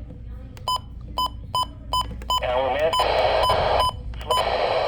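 Electronic alert beeps from a radio alert receiver, short and evenly spaced at about two a second. From about two and a half seconds in, a harsh static-like burst of alert data noise comes in under the beeps, breaks off briefly and returns near the end.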